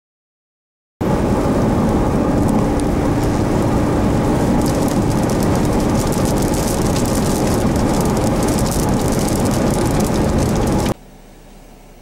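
Wind buffeting the microphone in heavy rain: a loud, dense rushing noise with fine ticks of raindrops, starting abruptly about a second in and cutting off near the end to a quieter steady hiss.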